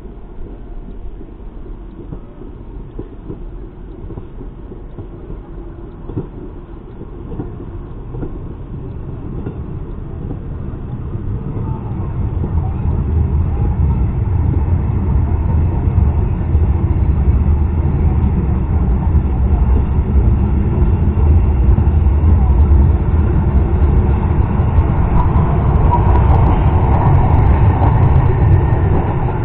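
Passenger train of vintage green coaches rolling past close by on the track: a low rumble of wheels on rails that builds as it comes in, stays loud while the coaches go by, and drops away near the end.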